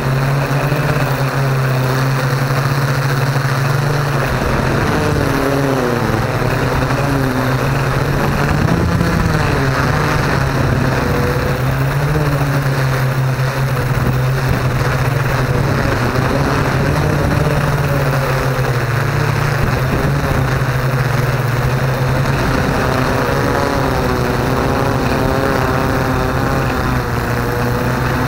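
Yuneec Q500 Typhoon quadcopter's electric motors and propellers whirring steadily, heard from its own onboard camera. The rotor pitch wavers up and down as the drone manoeuvres and descends toward the ground.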